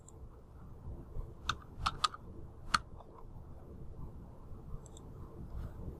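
A few faint clicks from computer keys, about four of them between one and three seconds in, over quiet steady room noise.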